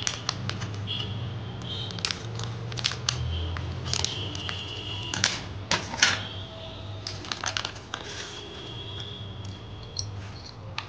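Metallized anti-static bag crinkling and crackling as it is snipped open with scissors and handled: an irregular run of sharp clicks and crackles.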